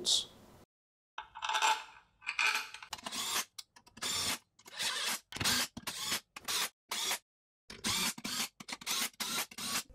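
Ingersoll Rand cordless power tool running the housing bolts down into a Toyota C52 transaxle's aluminium case in a string of short spurts, each lasting a fraction of a second.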